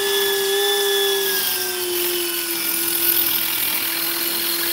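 Electric drill running steadily at speed while boring a hole. Its whine sags slightly in pitch about a second and a half in as the bit takes the load.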